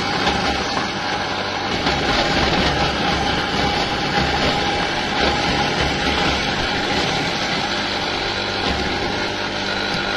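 Fiamak electric tomato paste machine running steadily: its motor gives a steady whine over a low hum as it strains tomatoes.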